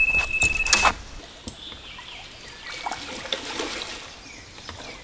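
Rainwater dripping and trickling, with scattered small ticks. A steady high beep and a few knocks sound in the first second, then stop.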